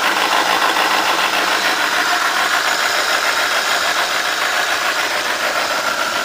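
Hyundai Accent engine running steadily with a fast, even ticking or knocking: the strange noise its owner cannot explain.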